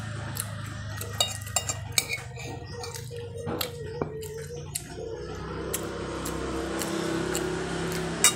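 Tableware clinking: a utensil knocking against a dish in a quick run of sharp clinks in the first half and once more near the end, over a steady low hum.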